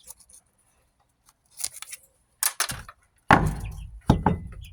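Several sharp knocks and scraping clatters of hard objects being handled, starting about halfway through, the loudest a little after three seconds in.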